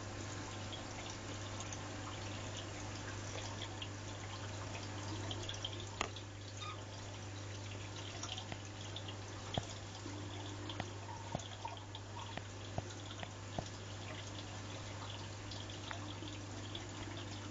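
Aquarium water trickling and dripping over a steady low hum, with a few sharp clicks scattered through.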